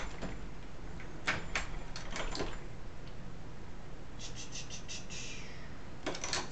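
Light metallic clicks and knocks from a hand-worked Lee Classic Turret Press reloading .45 ACP, as cases are handled and the press handle is cycled. A quick run of small ticks about four seconds in is followed by a short hiss, and there are a couple of firmer knocks near the end.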